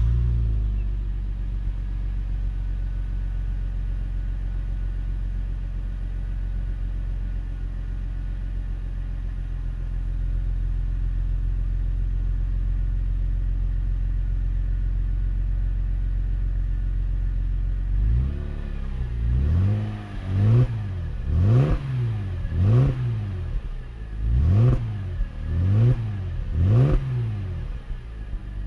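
Stock Mercedes-Benz C230 W203's 2.5-litre naturally aspirated V6 running at a steady idle just after starting. About 18 seconds in, it is blipped through a quick series of about seven or eight short revs, each rising and falling back to idle.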